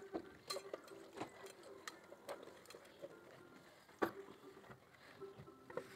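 Faint, irregular clinks and knocks of a stainless-steel saucepan and dishes being handled while washing up, with the loudest knock about four seconds in.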